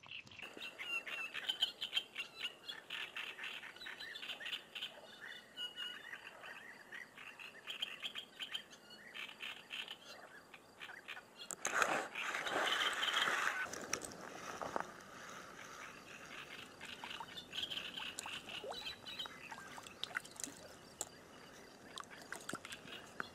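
Birds chirping and singing with frogs calling, a steady chorus of small high chirps. About twelve seconds in comes a short burst of louder rushing noise lasting a second or so.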